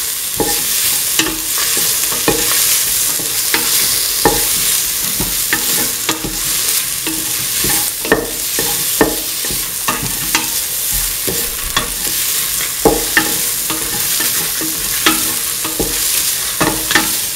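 Cauliflower, bell pepper, onion and chillies sautéing in oil in a metal pan, a steady sizzle, while a spatula stirs them, scraping and clicking against the pan about once a second.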